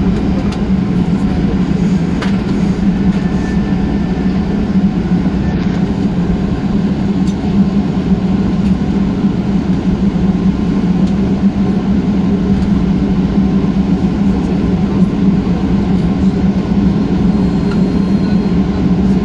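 Cabin noise inside a Boeing 737-800 taxiing after landing: a steady low drone and rumble from the idling engines and the rolling airframe, with a constant hum and no change in level.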